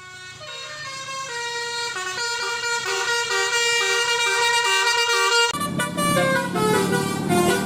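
'Basuri' telolet musical air horn on a bus, playing a quick stepped melody that grows louder. About five and a half seconds in, a low rumble joins and the horn goes on with a new run of notes.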